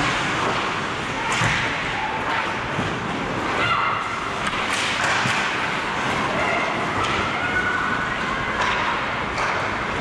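Ice hockey play heard from the goal: skate blades scraping the ice over a steady rink din, with repeated sharp knocks of sticks and puck. Short shouts about four seconds in and again around seven seconds.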